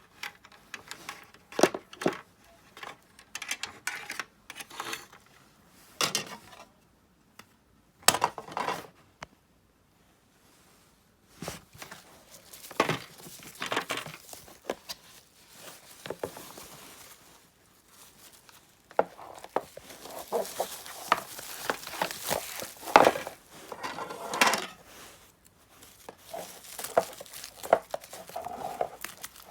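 Irregular handling noises: clicks, knocks and rustling of small hard objects being picked up and set down, with a busier, hissier stretch about two-thirds of the way through.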